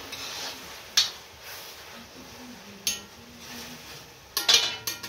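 A metal spatula clinking and scraping against a wok as a thick curry is stirred. There are single sharp clinks about a second in and near three seconds, then a quick cluster of louder clinks near the end.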